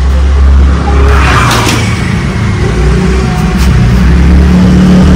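A motor vehicle's engine running, a loud, steady low rumble.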